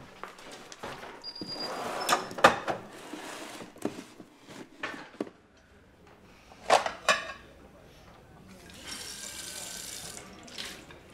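A shoe box handled at a shop counter: knocks and rustling with a short high beep. Then a couple of clatters, and near the end a kitchen tap runs briefly into a stainless steel sink and stops.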